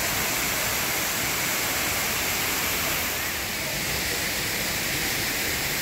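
Steady rushing of water from a small waterfall cascading over rocks, dipping slightly and changing in tone a little past halfway.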